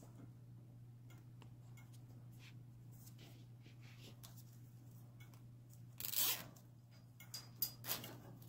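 Nylon cable tie ratcheting as it is pulled tight around a phone wire: one short zipping rasp about six seconds in, then a few sharp clicks near the end.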